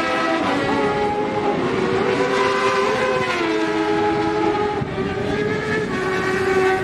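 Several racing sport motorcycles' engines running at high revs, their overlapping pitched tones stepping and sliding up and down as the bikes accelerate and pass.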